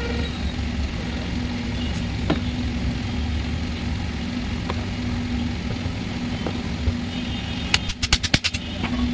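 A vehicle engine running steadily, with a quick run of about eight sharp clicks near the end.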